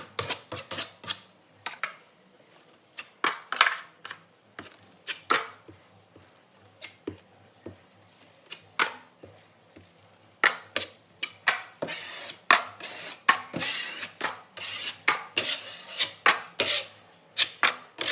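Hand tools scraping and rubbing on drywall in many short, irregular strokes, sparse at first and coming thick and fast with some longer swipes in the second half.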